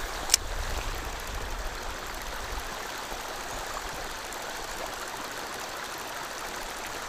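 Shallow river water running steadily over a gravel bed, an even rushing noise. A single sharp click comes shortly after the start, and a low rumble underneath fades out after about two and a half seconds.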